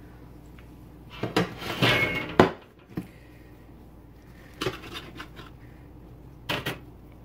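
A knife and plates clattering and scraping on the kitchen counter, with a sharp knock about two and a half seconds in, then two brief clinks later on.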